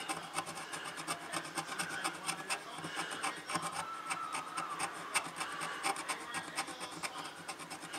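Pointed metal tool scraping the solder mask (enamel) off the copper traces of a circuit board to bare them for repair: fast, faint, irregular scratching strokes.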